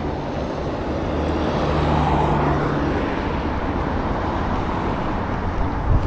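Road traffic: a motor vehicle passing, its engine hum and tyre noise swelling to a peak about two seconds in and then easing off into steady traffic noise.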